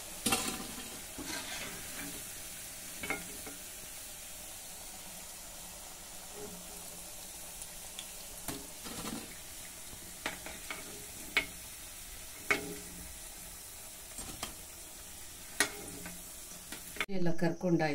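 Batter-coated cauliflower florets deep-frying in hot oil, a steady sizzle. Scattered sharp clinks of a slotted metal spoon against the kadai and plate as the fried pieces are lifted out.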